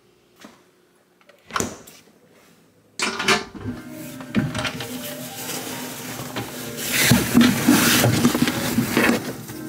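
Refrigerator being loaded: a few light clicks and a knock, like a fridge drawer or door, then from about three seconds in a steady rustling, clattering handling noise with a low hum, loudest near the end.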